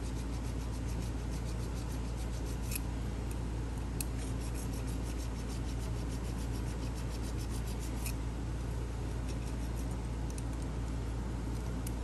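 Needle file scraping on the bit of a brass barrel key during finish filing, with a few light clicks, over a steady low hum.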